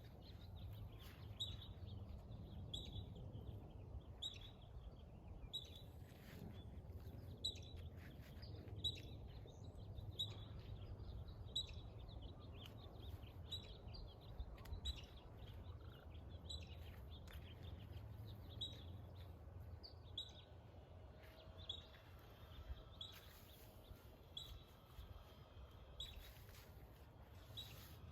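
A bird repeating a short, high chirp about once a second, faint over a steady low rumble.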